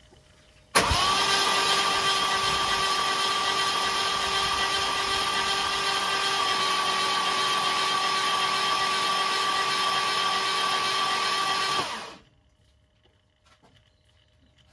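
Starter motor cranking the Mercedes 500SL's M117 V8, a steady whine that starts abruptly about a second in, holds evenly for about eleven seconds, then winds down. The engine is being turned over to check that the re-machined crankshaft pulley now runs true.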